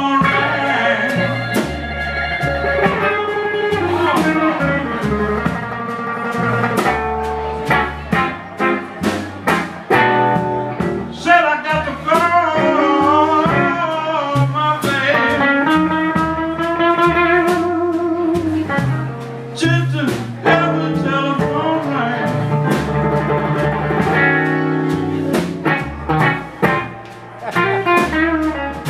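Live blues band playing an instrumental passage: electric guitar over upright bass and drums, with wavering, bending lead lines in the middle.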